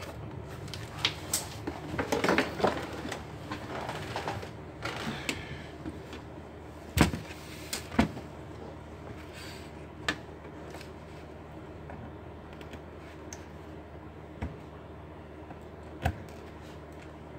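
Hands working on a laptop's plastic case parts: rustling and scraping for the first few seconds, then scattered sharp clicks and knocks of plastic and tools being set down and handled, over a steady low hum.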